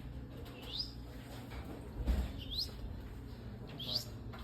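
Caged finch-type songbird giving short rising chirps, three in all, about a second and a half apart, over a steady low rumble with a dull thump about two seconds in.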